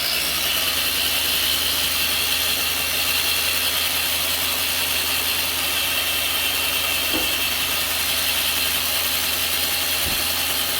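Traxxas TRX-4 RC crawler's electric motor and pinion-to-spur gear mesh running at a steady speed, giving an even high whine over a low hum. The pinion has just been shimmed with a flat washer and snugged down to cure gear-mesh noise.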